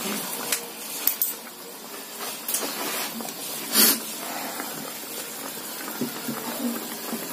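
Steady hiss of a gas-stove burner under an aluminium pan of soy-sauce chicken heating toward the boil. A few sharp knocks sound over it, the loudest about four seconds in.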